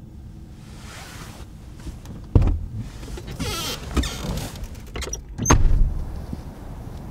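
Handling sounds inside a car: a heavy thump, a short rushing sweep, then clicks and a second heavy thump about three seconds after the first, over a low rumble.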